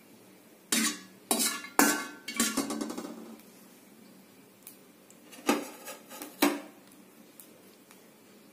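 Metal spatula clanking and scraping against a stainless steel kadai as cinnamon bark pieces are dry-roasted. A quick run of clanks and rattling comes over the first three seconds, then two more clanks about a second apart around the middle.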